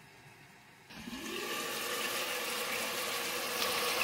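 After a faint first second, onions, tomatoes and garlic in oil start sizzling and bubbling in an uncovered pot on a low flame, a steady rushing hiss that sets in suddenly about a second in. The onions have stewed soft in the tomatoes' own juice.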